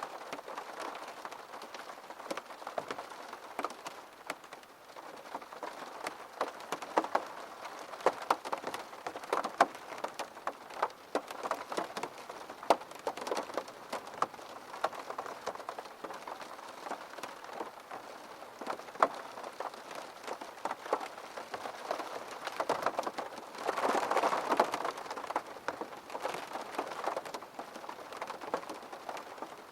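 Steady rain, with many distinct drops striking a hard surface over a soft wash of rainfall; the rain briefly grows heavier and denser about four-fifths of the way through.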